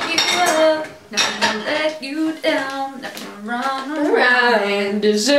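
A young woman's voice making wordless, drawn-out vocal sounds, with long held notes that slide up and down in pitch, the longest about four seconds in. There are a few light clicks or knocks.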